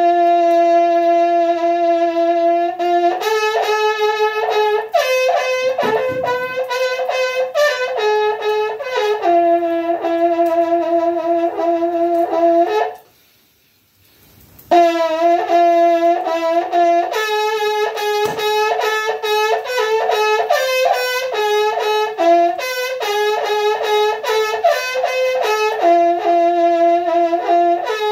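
A Mapuche ñolkin, a long hollow cane trumpet ending in a horn bell and sounded by drawing breath in, being played: long held notes alternate with quick switches between two or three overtones. A pause of about two seconds falls near the middle.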